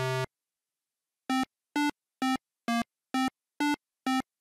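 8-bit chiptune bleeps keeping time with a pixel-art animal's walk. A lower, buzzier bleep ends just after the start; after about a second of silence, shorter, higher bleeps follow evenly, about two a second.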